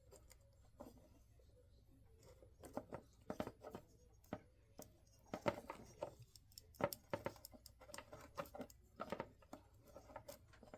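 Irregular small clicks, taps and scrapes of hands working thin single-core wire into a headlight switch housing, coming thicker from about two and a half seconds in.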